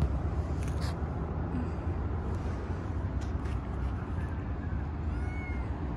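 Steady low outdoor rumble, with a few faint clicks and a faint short chirp about five seconds in.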